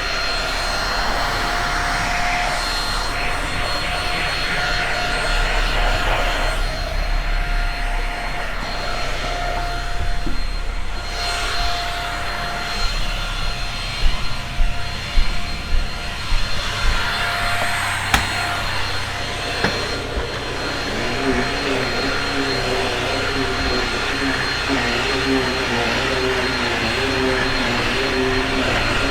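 Shark Rocket stick vacuum running steadily with a constant motor whine as it cleans carpet edges, with a few short knocks around the middle and a lower wavering hum in the last third.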